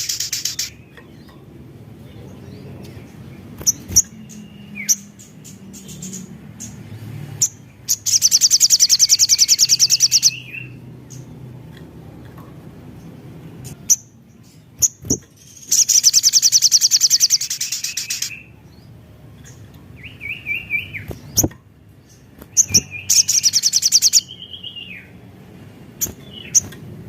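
Sogon (little spiderhunter) singing: four bursts of very rapid, high chip notes lasting one to three seconds each, with single sharp chips and lower, short downward-sliding notes in between.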